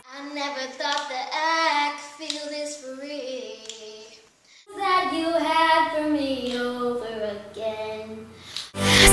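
A young girl singing unaccompanied in two short snatches with a brief break between them. The second snatch slides down to a low A3.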